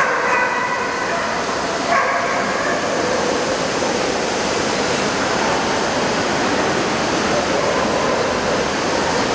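A dog yipping and barking a few times in the first two seconds, over the steady hubbub of a large, crowded hall full of people and dogs.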